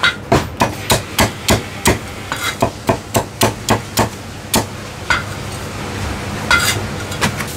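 Heavy Chinese cleaver chopping roast meat on a thick round wooden chopping block: sharp chops about three a second for the first four and a half seconds, then a few scattered strokes.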